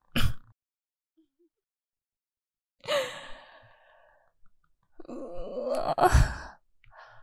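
A single short thud, the announced punch to the solar plexus, followed by a woman's breathy sighs, twice, the second longer and louder with a low thump in the middle.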